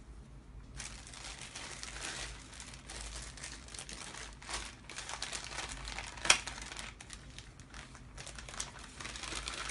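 Clear plastic packaging bags crinkling as they are handled and opened, starting about a second in, with one sharp snap a little past the middle.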